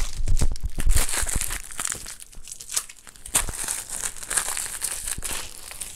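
Thin clear plastic packaging film crinkling and crackling as it is pulled apart and scrunched by hand, with a few low bumps in the first second or so.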